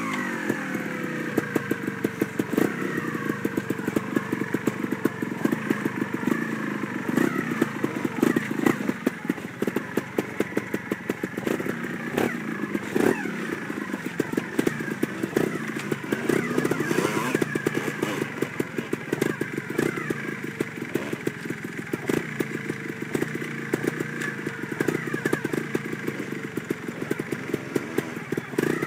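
Trials motorcycle engine running at low revs as the bike creeps over rocks, with short throttle blips now and then.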